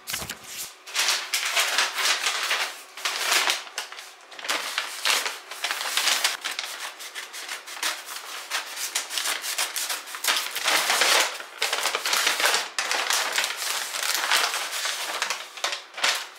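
Kraft-paper shipping bag crinkling and rustling as it is handled, torn open and pulled apart, in a long run of irregular crackly bursts.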